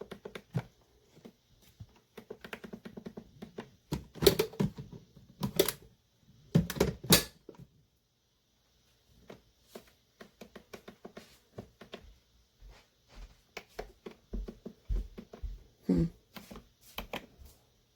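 Plastic buttons on a Cuisinart SS-16 coffee maker's control panel clicked and tapped over and over, with a few louder knocks about four to seven seconds in. The presses get no response from the single-serve side, which is faulty.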